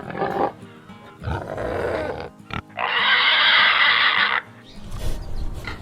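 Pigs grunting and squealing in short bursts, with one long, loud squeal lasting about a second and a half in the middle, over background music.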